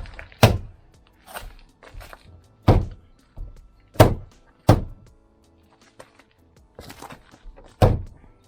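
Plastic door trim moulding being knocked onto its new panel clips on a car door: five loud thumps spaced irregularly, with lighter knocks between them.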